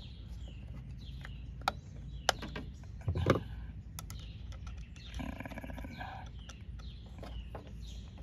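Small birds chirping repeatedly in the background, about twice a second, with a few sharp plastic clicks and a knock about three seconds in as the license plate lamp lens is pressed into place and a screwdriver is set to its screw. A short buzzy call lasts about a second, about five seconds in.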